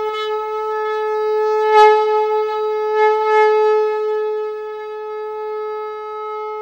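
Conch shell (shankh) blown in one long, steady note, swelling slightly in loudness a few times.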